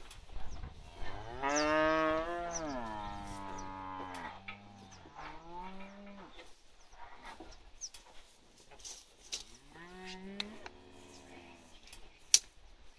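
Young heifers mooing: one long moo about a second in that drops in pitch at its end, shorter calls after it, and another moo about ten seconds in. Light knocks throughout, with one sharp knock near the end.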